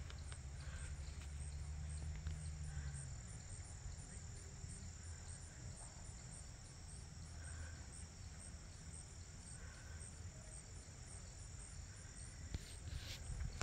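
Summer insects trilling: a high, steady drone. A low rumble runs through the first few seconds.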